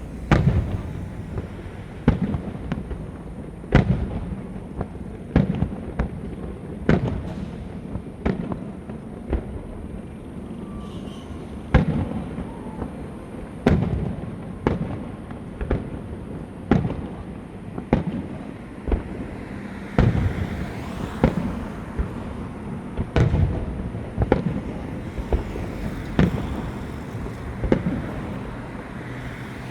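Fireworks going off: a string of sharp bangs about one to two seconds apart, each trailing off in a rumbling echo. About two-thirds of the way through, a denser stretch of noise fills the gaps between the bangs.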